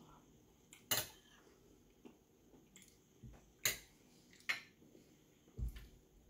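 Metal fork clinking sharply against a plate and bowl three times while eating, with a few lighter ticks and a dull low thump near the end.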